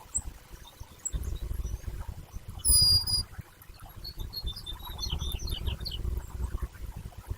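Pine siskins calling at a feeder: short high chirps, with one loud, clear high call about three seconds in and a run of quick twitters a little later. Low rumbling and thumps run underneath.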